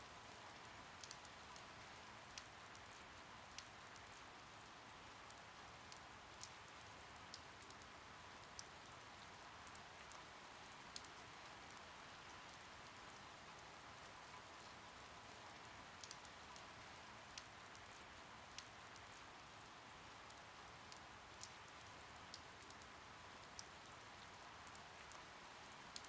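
Faint, steady rain: an even hiss with scattered drop ticks.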